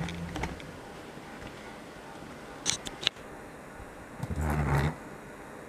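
Plastic handling sounds from a laptop's screen bezel being fitted back onto the lid: two sharp clicks about three seconds in, then a short scraping rustle near the end.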